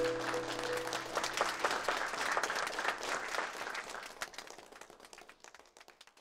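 A small group of people clapping, the applause thinning out and fading away toward the end. A held musical note from the end of a song dies out about a second in.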